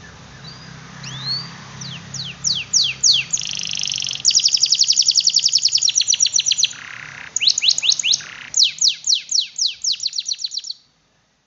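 Domestic canary singing: a few chirps, then a series of down-slurred whistles, a short buzzy trill and long fast trills of rapidly repeated notes, stopping abruptly near the end.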